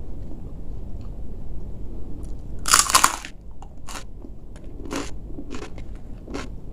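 A loud crunch as a crisp yellow fried cracker is bitten, about three seconds in, then crunchy chewing, about two crunches a second.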